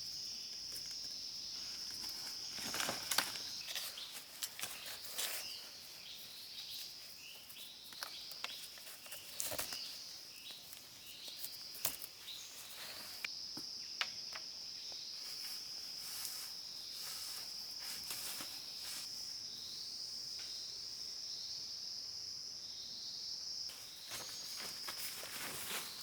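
Steady high-pitched drone of insects, with scattered rustles, clicks and snaps such as footsteps or handling in undergrowth, busiest in the first half. A run of short falling chirps repeats in the second half.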